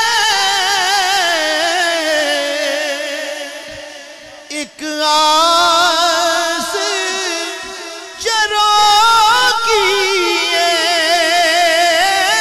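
A man singing a naat in long, wavering held notes without clear words. The first note fades out about four seconds in, and new sustained phrases begin about a second later and again about eight seconds in.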